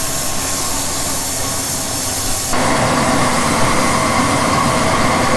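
Grain vacuum running steadily at full power, with air and grain rushing through it. About halfway through, the sound changes abruptly to the Flaman VRX grain vac's blower and the Case 2090 tractor driving it through the PTO, heard up close, with steady tones over the rush.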